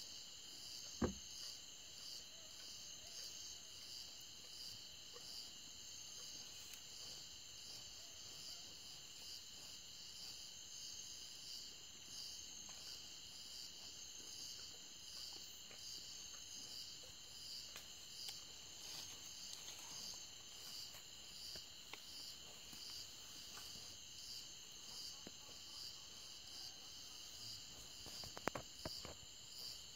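Night insect chorus, a steady high pulsing trill of crickets. A single low thump sounds about a second in, and a few sharp clicks near the end.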